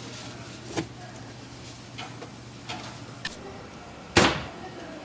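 A few irregular sharp knocks and clacks of hard objects striking, the loudest about four seconds in, over a steady background.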